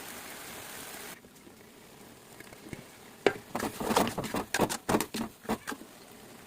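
A quick run of light taps and knocks, about a dozen in two and a half seconds, after a steady hiss that cuts off about a second in.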